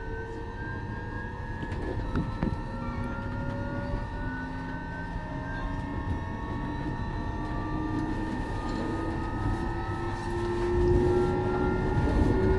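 Traction motors of an Alstom Coradia Nordic (X61) electric commuter train, heard on board as it accelerates. Several whining tones climb steadily in pitch over a constant electrical hum and the rumble of the wheels on the rails.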